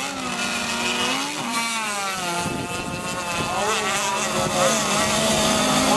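Motors of several radio-controlled racing boats running at speed, their pitch rising and falling as they race and turn.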